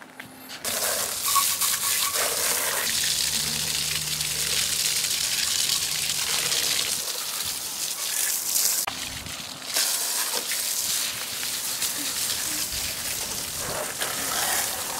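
Garden hose spraying water onto a muddy dirt bike, a steady hiss of spray and splashing that breaks off briefly about nine seconds in.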